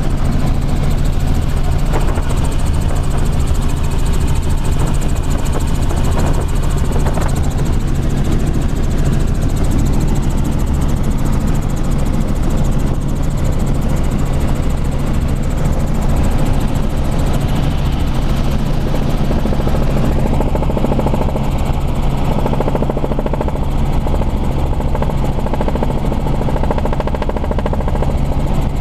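Helicopter rotor and engine running steadily in cruising flight, heard on board as a constant loud drone with a strong low hum.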